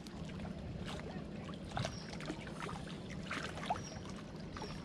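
Water being poured from a bottle into a small cooking pot on a camp stove, with scattered small clicks. A steady low hum runs underneath.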